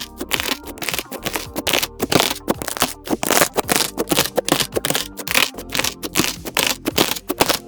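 Slime being squished and pressed by hand, a dense, irregular run of sticky pops and crackling clicks.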